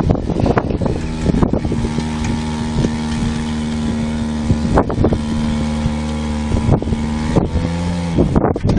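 Hatchback car engine running at low, steady revs while towing a plough through soil, its tone shifting slightly near the end. Wind buffets the microphone, with scattered knocks from the rig.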